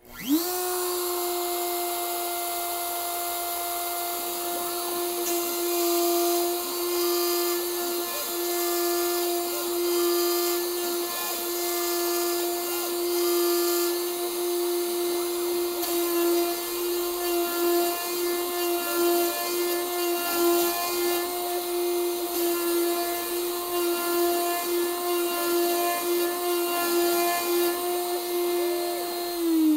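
DeWalt compact router on a Handibot CNC spinning up, then running at a steady high whine while it cuts a pocket into MDF, with short higher whines from the stepper motors as the axes move. It winds down with a falling pitch right at the end.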